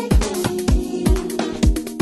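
House music track: a deep four-on-the-floor kick drum about twice a second, with hi-hat ticks between the beats and sustained keyboard chords above.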